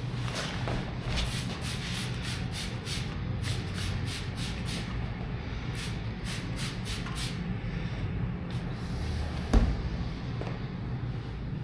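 Trigger spray bottle of all-purpose cleaner being squirted in quick runs of short hisses, several a second, with cloth wiping in between, then a dull thump about two-thirds of the way through.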